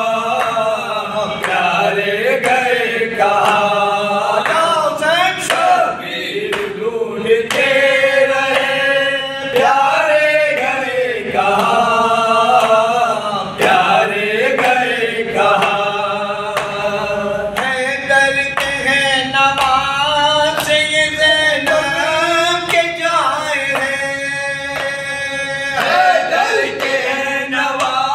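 A group of men singing a noha, a mourning lament for Imam Husain, in unison without instruments: a slow chanted melody with long, wavering held notes.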